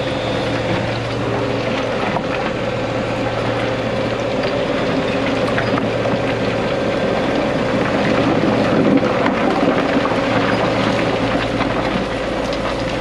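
Excavator diesel engine and hydraulics running steadily under load, heard from inside the cab, with a bulldozer working close by and a few faint knocks of rock.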